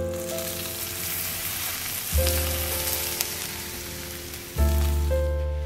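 Hot oil sizzling and crackling, fading out near the end, over background music whose sustained bass notes change about every two and a half seconds.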